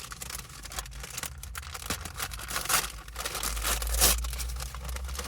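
Paper fry bag being unrolled and opened by hand: continuous crinkling and rustling of paper, with louder crackling rips about three and four seconds in.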